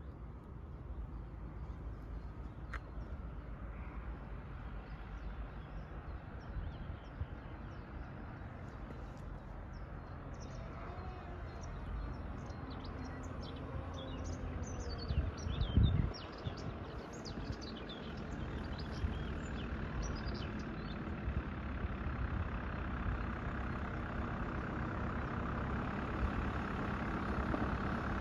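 Birds chirping over a steady low rumble, with a brief low thump about halfway. A tractor engine grows louder toward the end as the tractor approaches.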